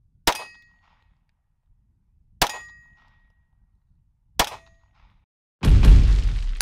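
Three single shots from a 9mm Walther PDP pistol fitted with a Parker Mountain Machine compensator, about two seconds apart, each with a short metallic ring after the crack. Near the end a loud, rushing logo sound effect starts.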